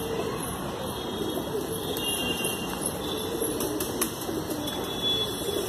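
Domestic pigeons (desi high-flyers) cooing: a steady, wavering low murmur.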